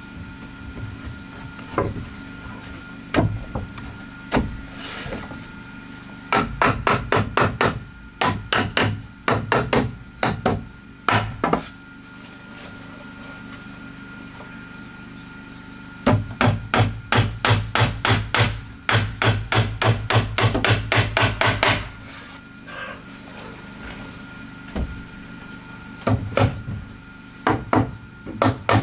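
Hammer striking wood: a few single knocks, then quick runs of blows at about four or five a second, with pauses between the runs.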